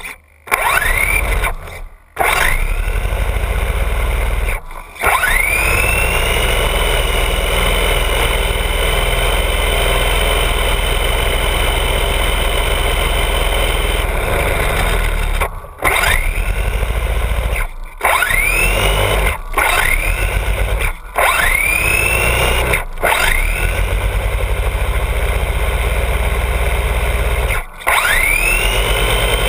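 Traxxas Bandit RC car's brushless electric motor whining at full throttle, with the throttle let off briefly about nine times. Each time it comes back on, the whine rises quickly to a steady high pitch, with the drivetrain running hard while the car stays in place, stuck.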